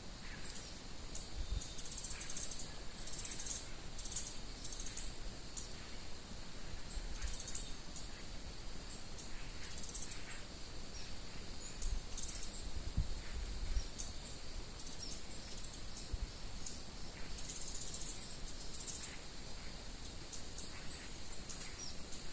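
Wild birds chirping in short, high clusters of calls, repeated throughout, over a steady faint high-pitched drone. A few low rumbles come and go, the longest a little past the middle.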